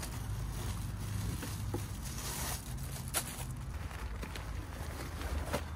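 Handling noise from nylon rain covers being pulled over touring-bike panniers: rustling with scattered light clicks and knocks over a steady low rumble.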